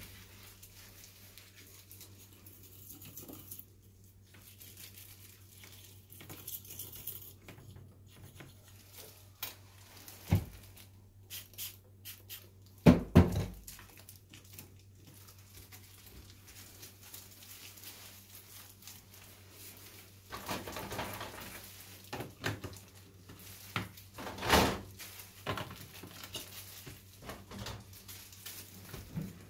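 Scattered clicks and knocks of plastic water-purifier pipe fittings being handled and pulled loose by a hand in a plastic glove, with a louder knock about halfway through and another later, and a stretch of rustling, over a steady low hum.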